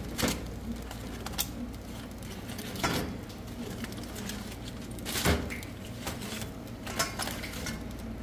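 Aluminium foil crinkling and metal tongs clicking against a stainless steel bowl as foil-wrapped roasting tomatoes are opened, several separate knocks, the loudest a little after five seconds in. A steady low hum runs underneath.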